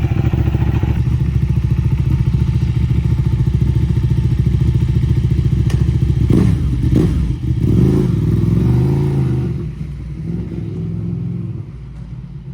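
Ducati Panigale 1299's L-twin engine running after a hard start following winter storage. It is revved in a few quick rises and falls a little past six seconds in, then drops back to a lower, quieter idle after about ten seconds.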